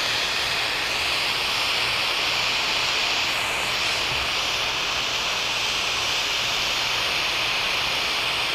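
Large propane torch burning with a steady hiss of flame while heating a copper radiator pipe for soldering.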